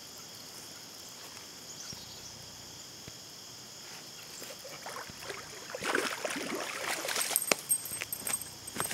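A hooked bass splashing and thrashing at the water's surface close to the bank, starting about five seconds in and loudest near the end, in irregular splashes with sharp slaps. Before that, only a steady high hiss of crickets.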